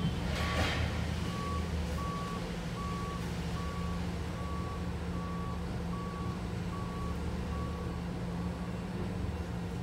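A vehicle's reversing alarm beeping steadily, a little more than once a second, over a steady low hum of an engine or machinery. A brief clatter about half a second in.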